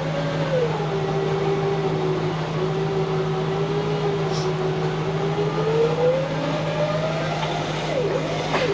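A vehicle engine running under load during a winch recovery up a muddy slope. Its pitch drops early on, holds low, then climbs about six to seven seconds in.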